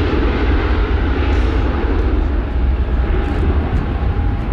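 Jet2 Boeing 757's jet engines at takeoff power during the takeoff roll: a loud, steady roar over a deep rumble, with a faint steady whine coming in about three seconds in.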